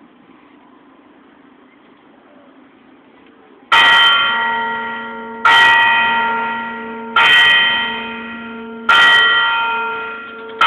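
A bell tolling: struck four times at an even pace, about one and three-quarter seconds apart, starting a little over three seconds in. Each stroke rings with several tones and fades until the next, and a fifth stroke lands right at the end.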